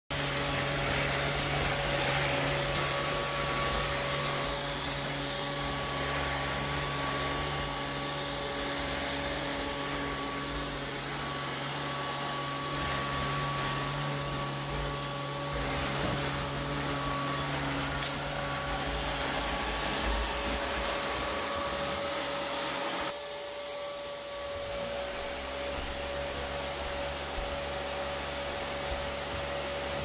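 Neato D7 robot vacuum cleaner running on a hardwood floor: a steady whir of its suction motor and brush with a constant hum, broken by one sharp click about two-thirds of the way through. A few seconds later the sound suddenly drops to a quieter steady whir.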